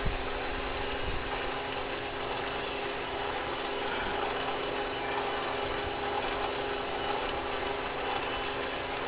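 Federal Signal Aerodynic Model 22 lightbar running, its rotator motors and gear drives turning the beacon reflectors with a steady mechanical whirring hum.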